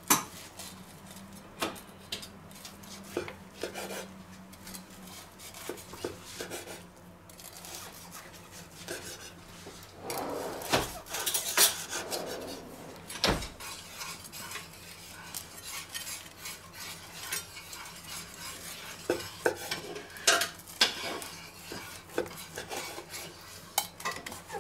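Knife slicing duck breast on a wooden cutting board, with scattered clicks and taps of the blade and a carving fork against the board. Two sharper knocks come about 11 and 13 seconds in.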